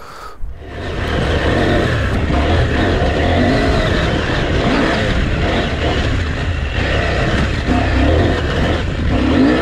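Motorbike engines running, loud and steady, starting about a second in.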